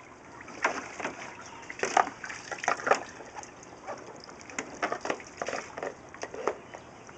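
Water sloshing and splashing in short, irregular strokes as a pond filter is handled in the water.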